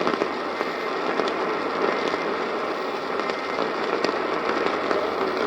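AM radio static: a steady hiss with scattered crackles, cutting off abruptly at the end.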